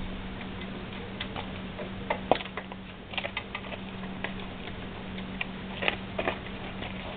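Screwdriver and small metal parts being handled at a Piaggio Ciao moped's engine: scattered small clicks and taps, a few louder ones about two seconds in and near six seconds, over a steady low hum.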